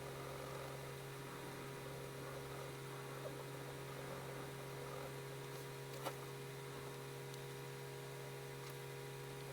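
Soft pencil scratching on paper, faint and uneven, under a steady electrical mains hum, with a single sharp click about six seconds in.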